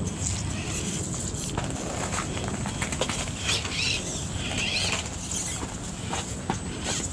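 Axial SCX24 Jeep Gladiator 1/24-scale RC crawler climbing over boulders, its tyres and chassis making many small clicks and scrapes on rock and dry leaves.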